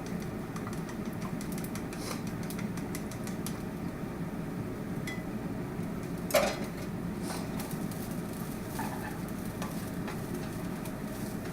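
Eggs being beaten in a bowl: quick clicks of the utensil against the bowl, about five a second, through the first few seconds, then one louder knock a little past halfway and a few scattered taps, over a steady low hum.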